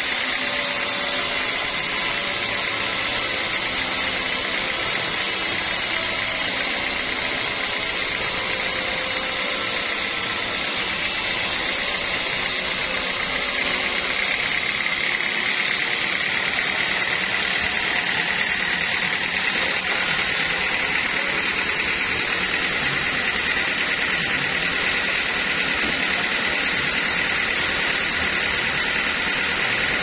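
Band sawmill running and sawing through a teak log: a steady high whine over a constant machine noise.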